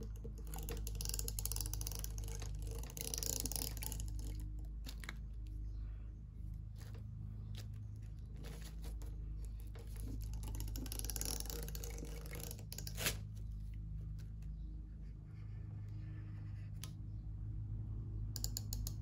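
Roller tape dispenser (double-sided tape runner) being pressed and rolled along the edges of a glossy photo-paper chip bag wrapper: scratchy rolling and rustling with scattered small clicks, and one sharper click about 13 seconds in.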